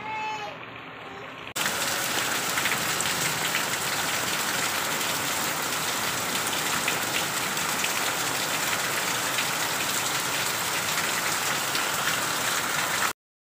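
Heavy rain pouring steadily, with fine drop ticks in the hiss. It comes in suddenly about a second and a half in, after a quieter stretch with a brief high tone, and cuts off abruptly near the end.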